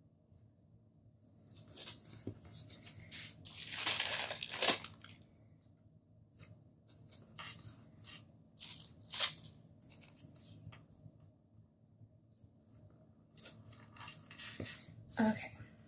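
Hands handling paper planner stickers and pages: a scratchy, tearing-like rustle lasting about a second, about four seconds in, and a shorter one near nine seconds. Between them come light rubbing and small taps as stickers are pressed down onto the page.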